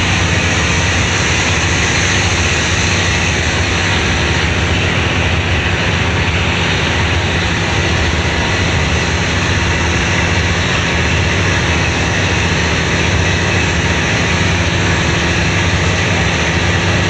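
Car ferry's diesel engines running steadily under way: a constant low drone with a steady rushing noise over it.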